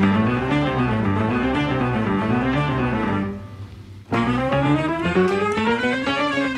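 Background music with melodies that glide up and down; it drops away for under a second a little past the middle, then comes back.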